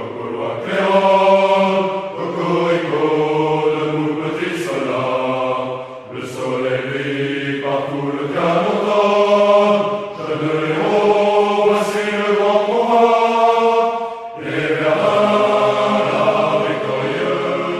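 A choir singing a slow anthem in long held notes, with short breaks between phrases about six and fourteen seconds in.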